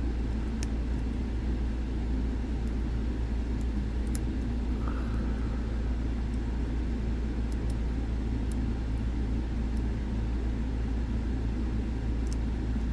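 Steady low background rumble, with scattered faint light ticks of a metal pick working the sliders inside a dimple lock cylinder.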